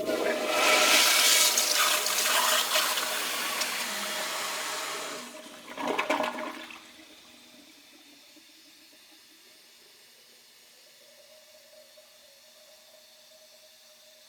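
Toilet flushing: a loud rush of water for about five seconds, a short gurgling gulp about six seconds in, then it dies away to a faint hiss.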